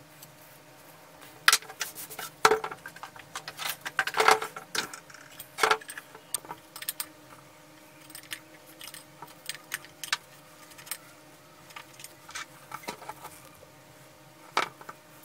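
Sharp metallic clinks and scrapes as the parts of a 1955 Muratori brass-and-copper hand sprayer are handled during disassembly: the pump rod worked by hand and a screwdriver loosening a small brass valve plug. The loudest clinks come in the first few seconds, lighter ticks follow, and one more sharp clink comes near the end.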